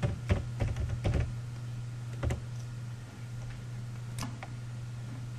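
Computer keyboard keystrokes: a quick run of taps in the first second or so, a single one a little past two seconds and a couple more near four seconds, over a steady low electrical hum.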